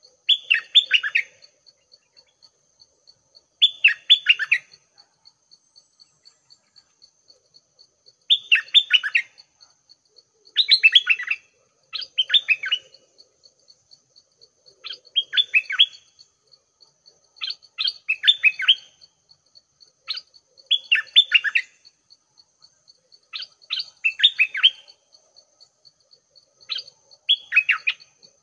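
Caged decoy songbird calling: about eleven short bursts of quick, falling notes, one every two to three seconds. Under them runs a faint, steady ticking, about three pulses a second.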